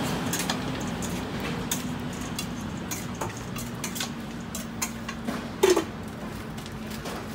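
A metal spoon clinking against a metal bowl as green papaya salad is tossed: a string of light clinks, with one louder, ringing clank a little over five seconds in, over a steady low hum.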